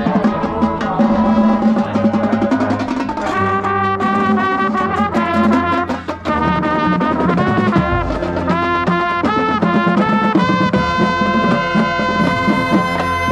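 High school marching band playing, its brass section holding loud chords that change every second or so over drums, with the trumpets close at hand.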